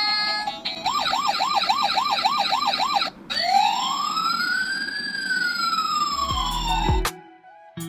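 Electronic siren sound effects from a toy truck's sound chip: a fast warbling siren for about two seconds, then after a brief break a slow siren wail rising and falling. A low bass beat starts near the end.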